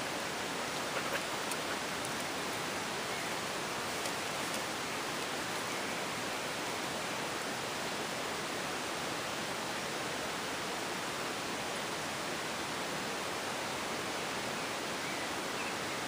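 Steady, even hiss of noise with no change in level throughout.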